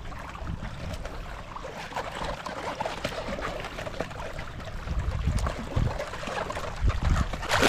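Water sloshing and trickling, with a few dull low thumps about five, six and seven seconds in.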